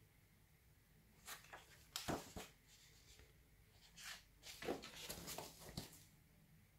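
Faint rustling and handling of the pages of a large old cookbook as it is leafed through: a few short rustles about two seconds in, then a cluster of soft rustles and taps from about four to six seconds.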